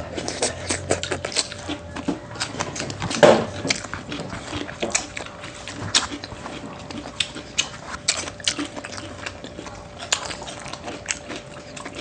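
Close-miked chewing and mouth smacks of people eating rice and adobo: irregular wet clicks several times a second, with one louder bump about three seconds in.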